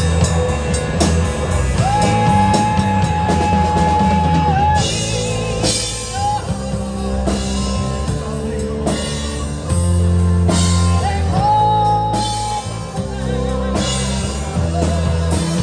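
Live rock band playing: drum kit and electric guitars with a steady heavy low end, and a long high held note twice, about two and eleven seconds in.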